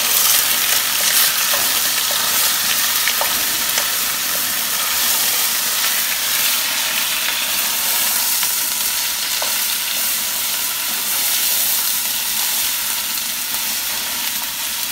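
Ground meat and bacon frying in a hot cast-iron Dutch oven: a steady, dense sizzle, with a few faint clicks.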